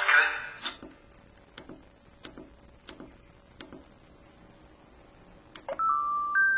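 LG-SV520 mobile phone: the tail of one sound effect cuts off, then five faint key clicks about two-thirds of a second apart. About 5.7 s in a click is followed by a loud steady electronic beep tone that steps to a different pitch.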